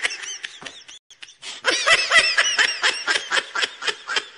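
Laughter sound effect: a high-pitched giggle in quick repeated bursts. It fades out in the first second, and a second, louder round of giggling starts about a second and a half in, trailing off near the end.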